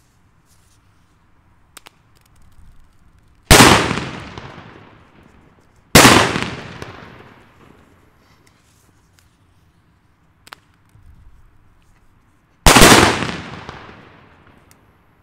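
Three loud bangs from Bonbridge Hua Liang 'Super Böller 3' Chinese firecrackers, each loaded with 2–4 g of flash powder and plugged with plaster and sawdust. Each bang is sudden and dies away in an echo over about two seconds; the first two come about two and a half seconds apart and the third about seven seconds later.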